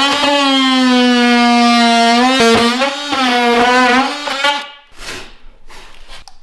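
Power saw undercutting door trim at floor-plank height: a steady buzzing tone that dips in pitch as the blade bites, then stops suddenly about three-quarters of the way through.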